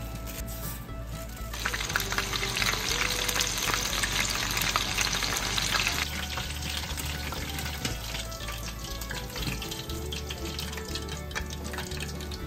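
Chicken karaage deep-frying in a small pot of hot oil, sizzling and crackling. The sizzle turns much louder about a second and a half in, then drops to a quieter crackle about halfway through as the pieces are lifted out with a strainer.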